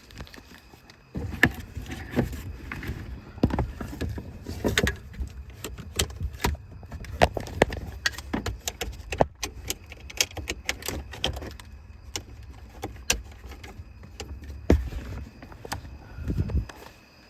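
Rummaging: a dense run of sharp clicks and light rattles, keys jangling among them, over low rumbling handling noise. It starts about a second in and stops near the end.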